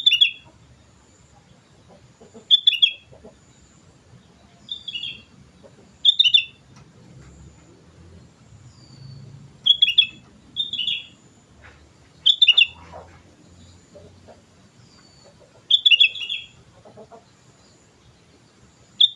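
Sooty-headed bulbul (kutilang) calling: short, bright phrases of two or three quick falling notes, repeated about every two to three seconds.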